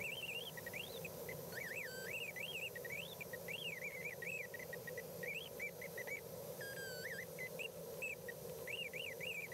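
Faint warbling electronic tone from a glider's audio variometer, its pitch sliding up and down in quick zigzags with short gaps. Under it runs a low, steady hiss of airflow over the cockpit, sped up.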